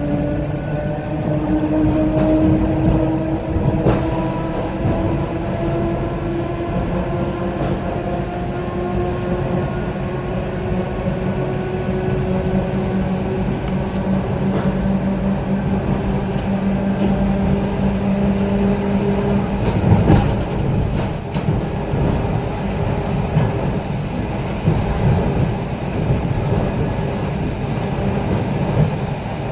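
ET2M electric multiple unit running, heard from inside the passenger car: a steady rumble of wheels on rail with a motor whine that climbs slowly in pitch for the first twenty seconds or so, scattered clacks over rail joints, and one louder jolt about two-thirds of the way through.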